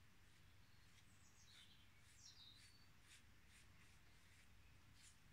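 Near silence, with faint bird chirps in the background about one and a half to two and a half seconds in, and a series of soft, scratchy brush strokes on paper.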